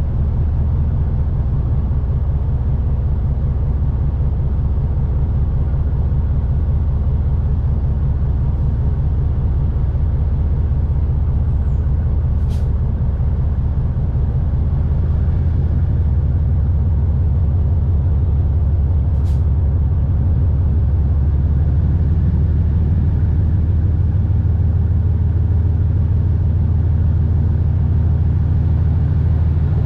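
Diesel locomotive of a coal train running at low speed, heard as a steady low engine drone and rumble. Two faint sharp ticks come about halfway through.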